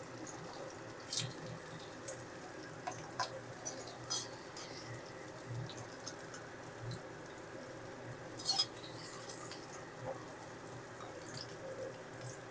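Scattered light clicks and knocks of a cooking utensil against a metal kadai as fried raw jackfruit pieces are lifted out of hot mustard oil, the loudest cluster about eight and a half seconds in.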